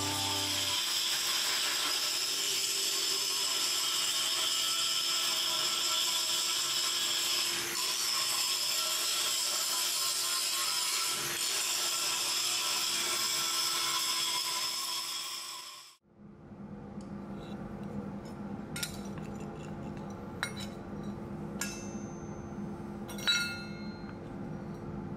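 Angle grinder with a red abrasive disc grinding a leaf-spring steel blade: a steady high whine over a grinding hiss that cuts off suddenly about sixteen seconds in. After it a few light metallic clicks and taps as the steel blade is handled on an iron anvil block.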